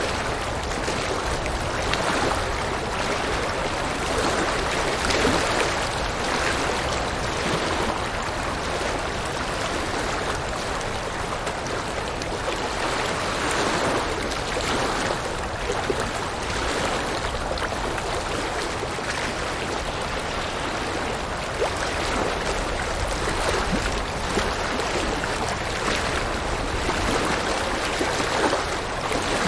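River water running steadily over rocks, a continuous rushing and babbling with small swells.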